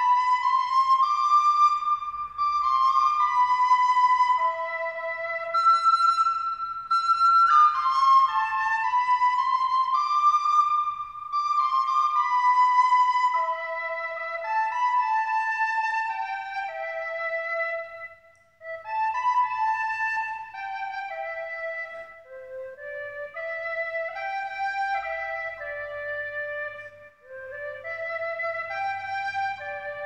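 Music: a single flute-like wind instrument playing a slow melody of held notes that step up and down, with a brief pause about two-thirds of the way through.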